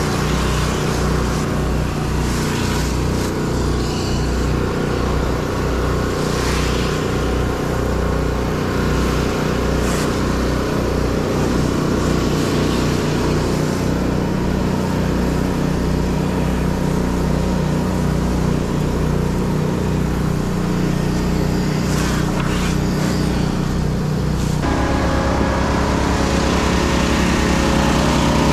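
Small gas pressure washer engine running steadily under load while the spray wand blasts water onto wooden deck boards, with a hiss of spray over the engine. Near the end the engine note shifts.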